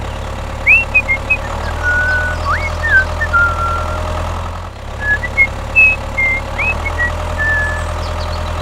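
A small tractor engine running steadily at idle with an even putter, and short high chirping whistles over it.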